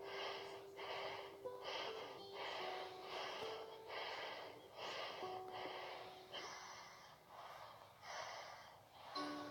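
A person breathing fast and hard in short, regular breaths, about two a second, over faint music.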